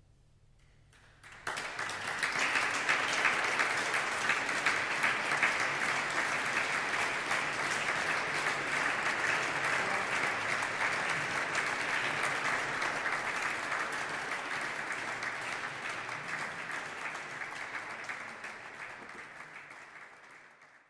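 Audience applauding. The applause starts suddenly after a short hush about a second and a half in, is strongest for the next few seconds, then slowly dies down.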